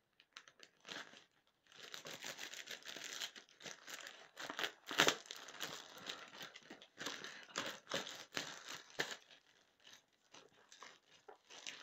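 Plastic film wrapping being torn open and crinkled by hand: a run of tearing and rustling, with the sharpest rip about five seconds in.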